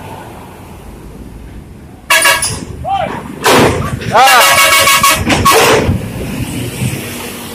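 Bus musical air horn ('telolet') sounding in several loud blasts starting about two seconds in, some notes gliding up and down in pitch, stopping about six seconds in.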